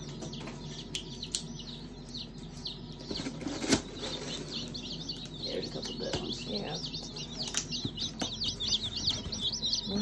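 Baby meat chicks peeping inside a cardboard shipping box as it is opened, the peeps many and short, growing denser toward the end. A single sharp knock about four seconds in is the loudest sound.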